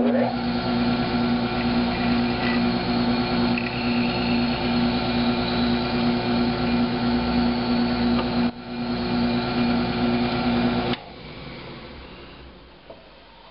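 Benchtop drill press motor running with a steady hum while screw holes are drilled into the edge of a plywood board. The sound dips briefly about eight and a half seconds in, then the motor is switched off about eleven seconds in and the hum dies away as it spins down.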